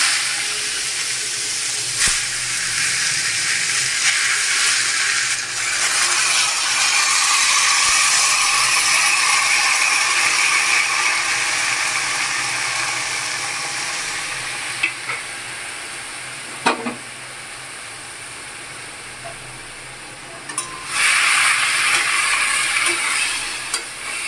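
Grated ash gourd sizzling as it hits hot oil with bay leaf, cardamom and cumin in a kadai. The sizzle starts suddenly, dies down in the second half, then flares again near the end as a metal spatula stirs it, with a few sharp clinks.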